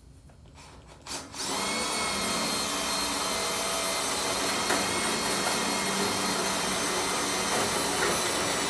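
Electric drill starting about a second in, its motor whine climbing to speed and then running steadily as a 1/8 inch bit drills a rivet hole through two layers of stainless steel sheet.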